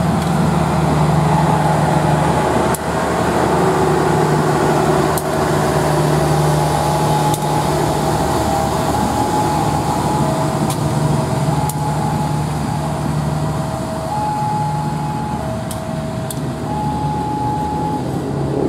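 CC 201 diesel-electric locomotive (a GE U18C) running steadily as it moves a rake of coaches at shunting speed. Sharp clicks come now and then, from the wheels passing over rail joints.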